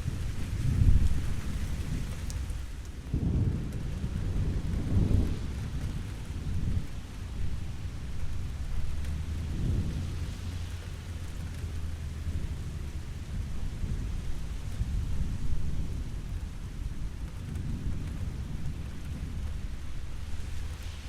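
Steady rain with rolling thunder: low rumbles swell and fade again and again over the hiss of the rain, the strongest about a second in and around four to five seconds in.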